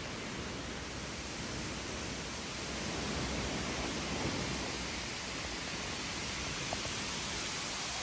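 Strong wind blowing through the birch and spruce forest, a steady rushing hiss of leaves and branches, with low wind rumble buffeting the microphone. It swells a little about three seconds in.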